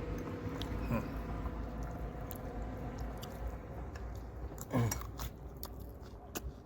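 Someone chewing and biting food close to the microphone, with scattered small clicks. About five seconds in there is one louder, short sound that drops in pitch.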